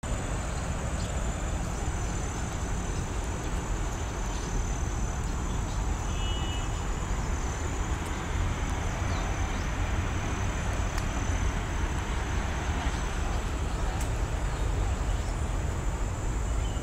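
Outdoor park ambience: a steady low rumble of distant city traffic under a constant high-pitched hum, with a short bird chirp about six seconds in.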